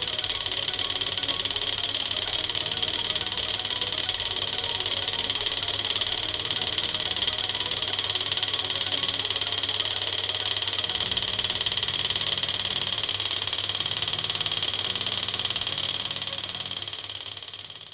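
Homemade thermoacoustic Stirling engine running: a steady low hum with steady high-pitched tones over it, fading out near the end.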